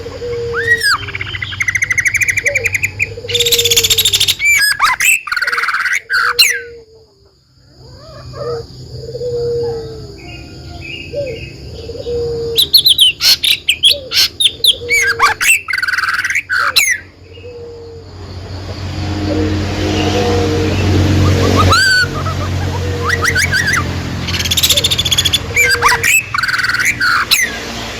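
Birds chirping and calling: clusters of rapid sharp chirps and rising and falling whistled notes. Underneath them a lower call repeats about once a second for the first half.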